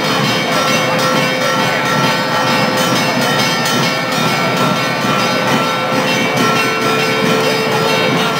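Church bells ringing continuously and festively over the noise of a large crowd, with several bell tones sounding together without a break.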